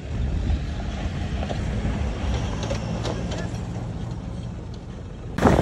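Land Rover Defender's engine running at a distance as it drives over rough, dry ground: a steady low rumble with light rattling ticks. Near the end, a sudden, louder noise cuts in.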